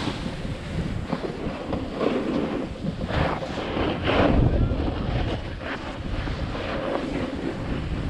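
Wind rushing over an action-camera microphone while a snowboard slides down a groomed slope, its edge scraping the snow in several louder surges, the strongest about halfway through.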